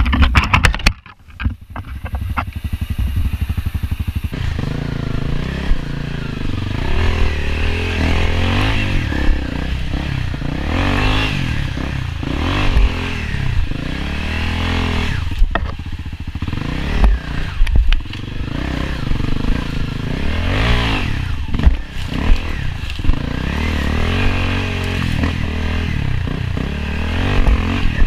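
Enduro dirt bike engine revving up and down under throttle as it is ridden over rough trail. In the first few seconds it drops to slow, pulsing low revs, then climbs and falls repeatedly. Occasional knocks and scrapes come from the bike over rocks and brush.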